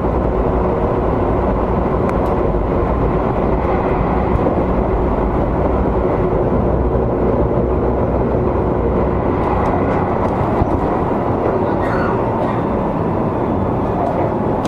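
Seibu 20000 series electric train running at a steady pace: wheels rolling on the rails with a steady whine from the traction motors.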